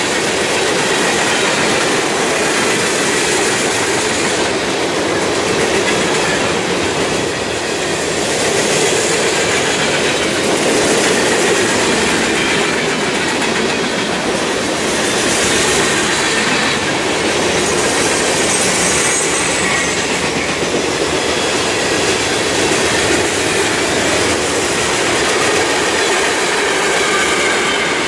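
Freight train cars rolling past: a steady, loud noise of steel wheels running on the rails.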